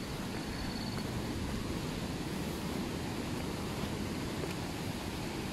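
Steady rushing of a waterfall and its river, an even noise without breaks, with a brief faint high tone about half a second in.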